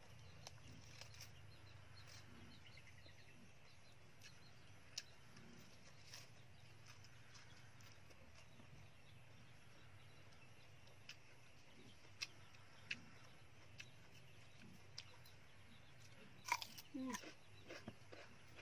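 Faint chewing and crunching of raw vegetables such as lettuce and cucumber, with scattered small clicks over a faint steady low hum. Near the end comes a brief, louder animal call with gliding pitch.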